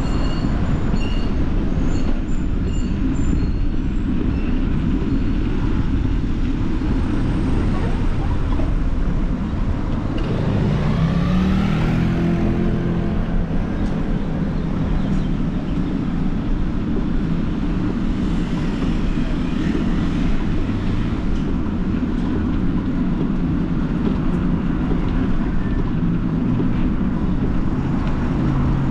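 Wind rushing over the microphone and road rumble during a bicycle ride along a street. About ten seconds in, a motor vehicle's engine passes close by, rising in pitch and then fading.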